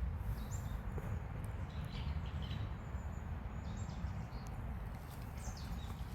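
Outdoor ambience: a steady low rumble, like wind or handling noise on the microphone, with a few faint short high chirps scattered through it.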